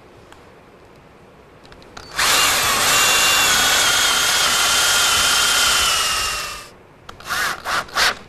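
Cordless drill/driver driving a screw into a white oak corbel: the motor runs steadily for about four seconds, its pitch sagging slightly under load before it winds down. A few short trigger bursts follow near the end.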